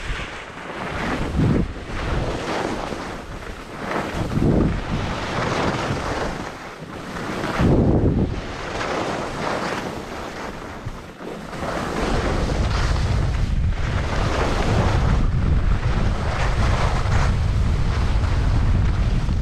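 Skis scraping and carving over chopped-up snow, swelling with each turn, mixed with wind buffeting the microphone. In the second half the wind rumble becomes steady and heavier.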